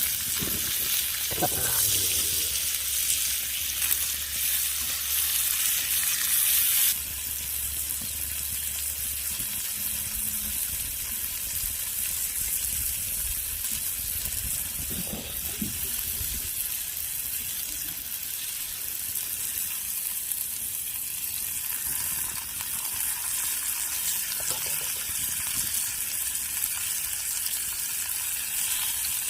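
Pork sizzling and frying in its fat on a steel griddle (teppan). The sizzle is loud for about the first seven seconds, then drops suddenly and carries on steadier and quieter.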